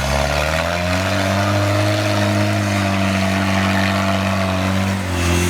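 GAZ-69's freshly rebuilt four-cylinder flathead engine running under load as the jeep drives, its pitch rising about half a second in, holding steady, then dipping and picking up again near the end.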